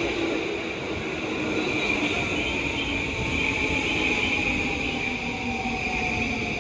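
JR East E235 series 1000 train with a Mitsubishi SiC VVVF inverter decelerating as it comes in. The motor whine falls steadily in pitch over the rumble of the wheels on the rails, with a steady high squeal on top.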